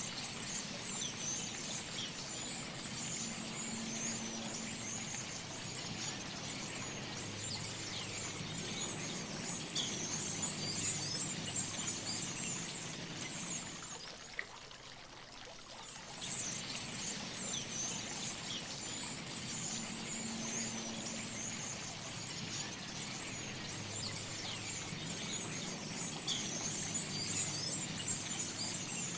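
Many birds chirping and whistling in short, high calls over a steady rush of running water. There is a brief lull about halfway through.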